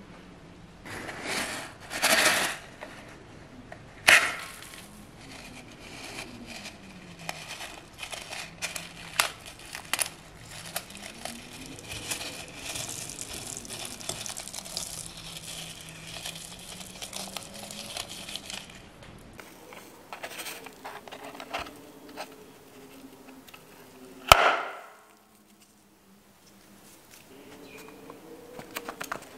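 Rubber balloons being squeezed and cut open over a glass bowl: liquid squirting and squelching, tiny foam beads crackling and rattling into the bowl, and scissors snipping the balloon rubber. One sharp snap about 24 seconds in.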